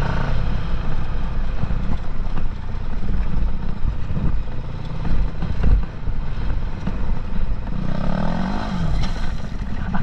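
Dirt bike engine running at riding speed on a gravel track under a heavy low rumble, with a loud thump a little past the middle. Near the end the engine revs up and drops back.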